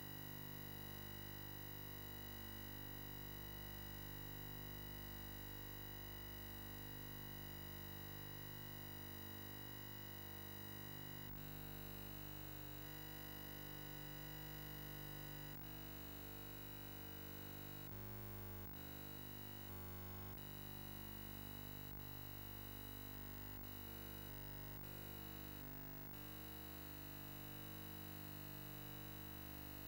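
Faint steady electrical buzz made of many steady tones at once, picked up on the recording's audio line. Its tone shifts abruptly about a third of the way in, then changes several more times over the next fifteen seconds before settling.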